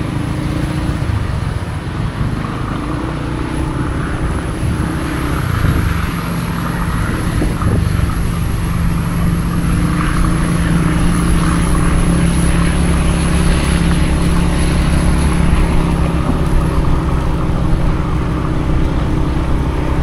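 Vehicle engine running steadily under way, with a constant hum and road and wind noise that build over the first several seconds and then hold.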